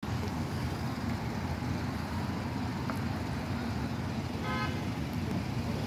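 Steady low rumble of street traffic and vehicle engines, with a brief horn toot about four and a half seconds in.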